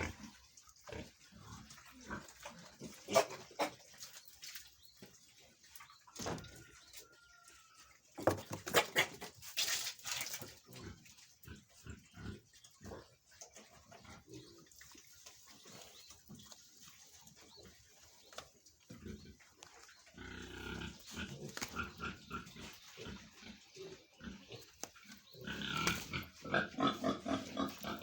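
Pigs grunting and calling: many short, irregular grunts, with louder spells of calls about a third of the way in and again near the end.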